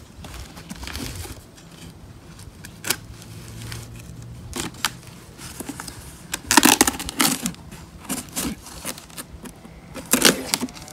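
A large cardboard shipping box being handled and cut open: irregular scrapes, rustles and knocks of cardboard, busiest about six to seven seconds in and again near the end.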